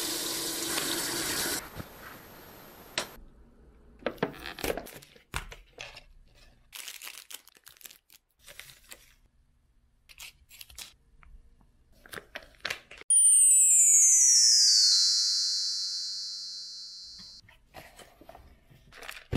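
A tap runs into a sink for about the first two seconds, then come scattered crinkles and rustles of a cup-noodle lid and plastic seasoning packets being handled. About thirteen seconds in, a loud electronic sound effect starts, its tones sliding down in pitch as it fades over about four seconds.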